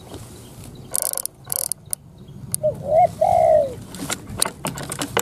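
Spotted dove cooing: two short rising notes and then a longer, falling coo, the call repeating. About a second in come two short hissy rustles.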